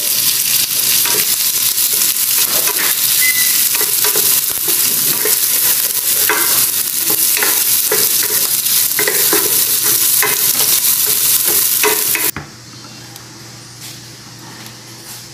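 Diced shrimp sautéing in hot oil with garlic and onion in a nonstick pan: a steady loud sizzle, with the scrapes and taps of a wooden spatula stirring it. About twelve seconds in the sizzle cuts off abruptly, leaving a much quieter stretch.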